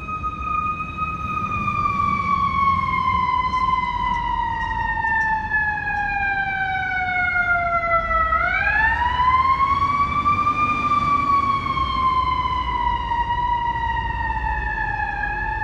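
Fire truck siren wailing. Its pitch sinks slowly for about eight seconds, swoops back up over the next two, then starts sinking slowly again, over a low rumble of engine and traffic.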